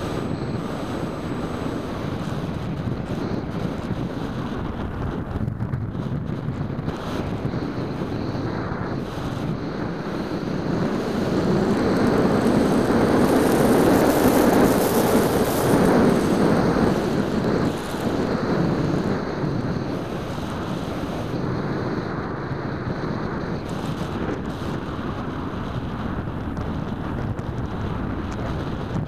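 Wind rushing over the microphone of a keychain 808 camera mounted on an EasyStar 2 foam RC plane in flight: a steady airflow noise that swells louder for several seconds in the middle, while the plane is nose-down.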